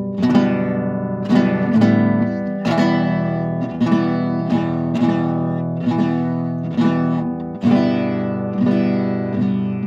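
Acoustic guitar played freestyle, chords struck or plucked every half-second or so and left to ring.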